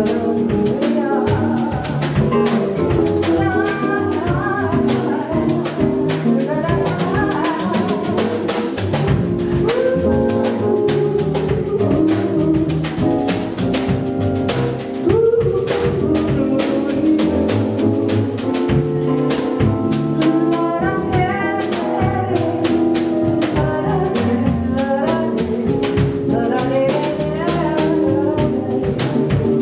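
A live jazz quartet playing: a female vocalist singing over upright bass, electric keyboard and drum kit, the drummer keeping time on the cymbals.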